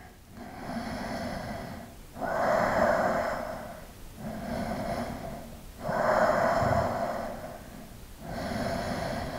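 A man breathing slowly, deeply and audibly while he holds a yoga pose. Long breaths of about two seconds each, with softer and louder breaths taking turns.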